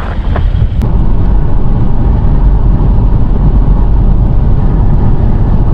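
A car driving at road speed: a steady, deep rush of road and engine noise that comes up about a second in.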